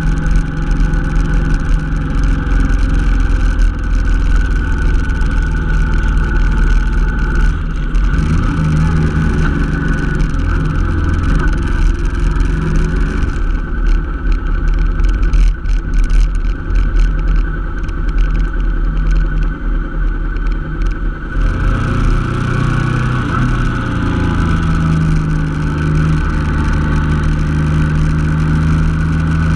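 Honda NT700V Deauville's 680 cc V-twin running under way, with steady wind and road noise; the engine note shifts in pitch a couple of times.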